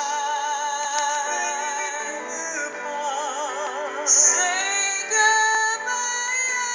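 Very high-pitched singing over backing music, with a wide vibrato on held notes, sliding up to a louder, higher note about four seconds in.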